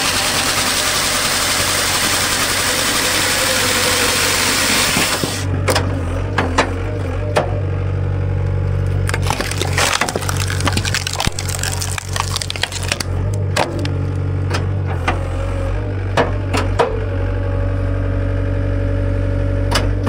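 Halverson 120 firewood processor's chainsaw bar cutting through a log for about the first five seconds, then stopping suddenly. The Takeuchi skid steer's engine then runs steadily while the cut round is forced through the six-way splitting wedge, with repeated cracks and knocks of wood splitting apart.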